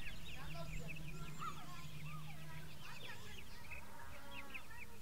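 A flock of young poultry peeping and cheeping, many short high calls overlapping, over a low steady hum that fades about halfway through.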